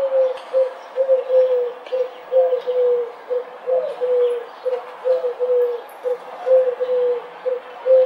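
Feral rock pigeons cooing: low coos, each a short note then a longer slightly falling one, repeating about once a second.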